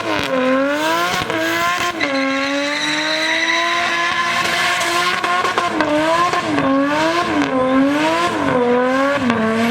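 Nissan RB25DET turbocharged straight-six held at high revs under a burnout, rising slowly for a few seconds, then bouncing up and down about once a second as the throttle is worked, with tyre squeal over it.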